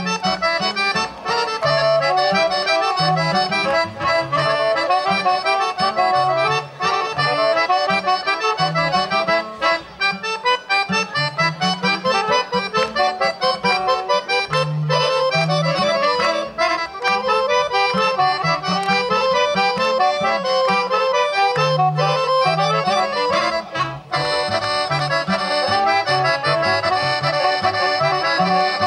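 Accordion playing a Serbian folk dance tune, a busy melody over a steady, regular bass line; near the end the playing grows fuller and brighter.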